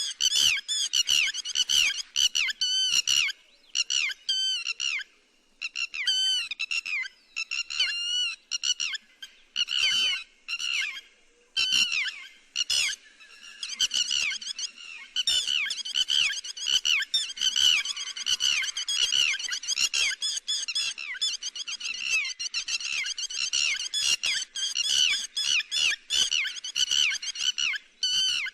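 Lapwing calls: rapid series of short, high notes that fall in pitch, coming in bursts with brief pauses between them.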